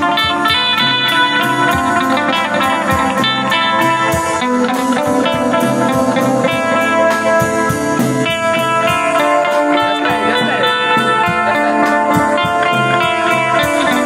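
Live band playing a sound-check number: an amplified Fender Stratocaster electric guitar over a drum kit keeping a steady beat, with sustained chords underneath.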